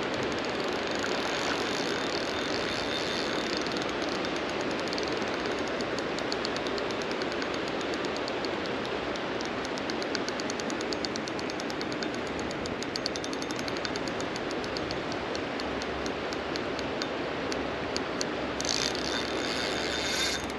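Steady rush of river water, with a long run of rapid, even clicking from a fishing reel through the middle and a brief louder hiss near the end.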